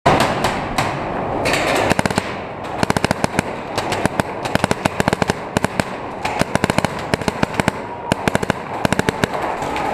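Paintball markers firing: sharp pops in rapid strings of many shots, up to about ten a second, with short gaps between strings, in an underground cave.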